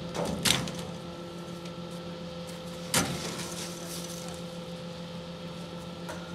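Rear-loading garbage truck running with a steady engine and hydraulic hum, with a knock about half a second in and a sharp bang about three seconds in.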